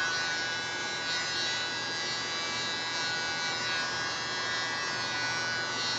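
Steady electric buzz from a small motor running continuously, with several thin high tones held throughout.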